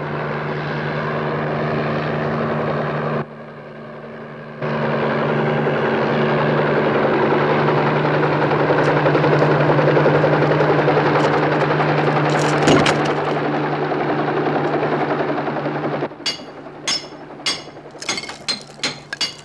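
Helicopter engine and rotor noise, loud and steady, dropping away briefly about three seconds in. It cuts off near the end, giving way to a quick run of sharp strikes of steel bars chipping at a masonry wall.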